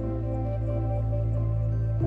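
Slow ambient music of held low chords with no beat.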